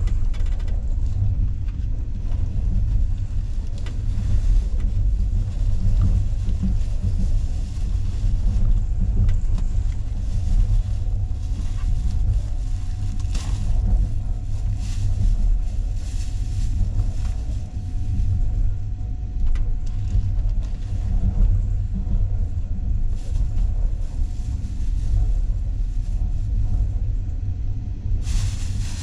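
Passenger train running along the track, heard from inside the carriage: a steady low rumble of the wheels on the rails, with a few sharp clicks and a faint steady whine through the middle. Near the end a louder hiss comes in over the rumble.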